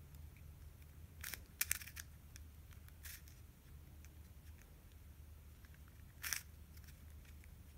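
Faint plastic clicks of a small 30mm 3x3x3 picture cube's layers being turned by hand: a few scattered clacks, a pair about one and a half seconds in and a sharper one about six seconds in, over a low steady hum.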